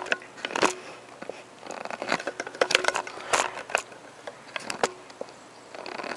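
Handling noise: an irregular string of short clicks, light knocks and scrapes, as something is moved about by hand.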